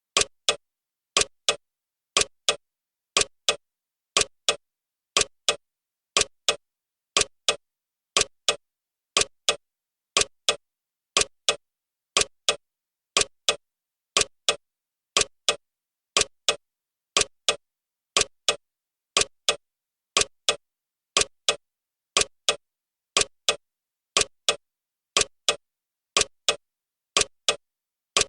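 Clock ticking sound of a countdown timer: sharp, evenly spaced ticks at a steady rhythm.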